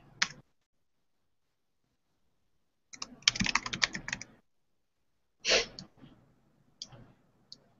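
Typing on a computer keyboard: a quick run of keystrokes about three seconds in, then a heavier tap and a few single clicks, with silence between.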